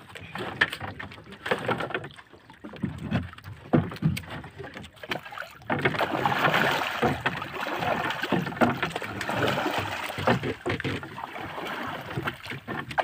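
Water sloshing and splashing against the hull of a small wooden outrigger canoe, with scattered knocks, as a hooked catch is hauled up alongside. The splashing gets busier and louder about halfway through as the catch nears the surface.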